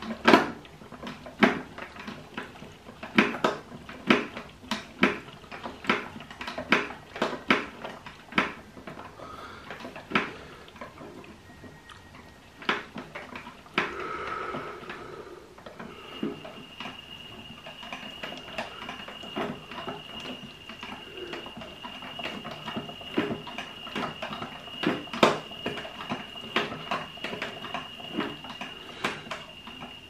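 Toy Miele Softtronic washing machine by Klein running a small wash: its plastic drum and the load clack and rattle irregularly. About halfway through, a steady high-pitched whine joins in.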